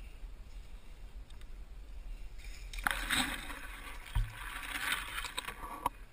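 Water sloshing and splashing in two swells, about three and five seconds in, with a short dull thump just after four seconds.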